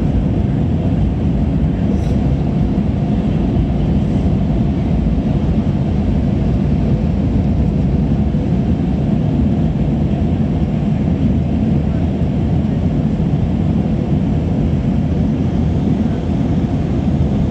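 Airliner cabin noise in flight: the steady, even rush of the jet engines and airflow heard from inside the cabin.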